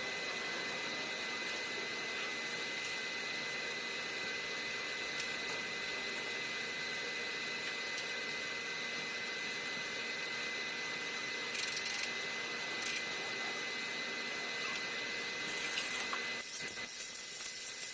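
Steady mechanical hiss and hum with a high, even whine, broken by a few short clatters in the second half.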